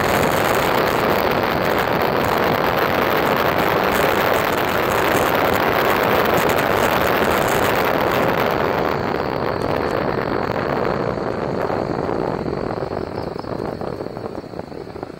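Steady rushing of wind on the microphone and wheels on the road while riding at speed, dying down over the last few seconds.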